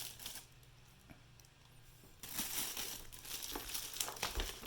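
Packaging crinkling and rustling as it is handled in the box, starting about two seconds in after a quieter stretch.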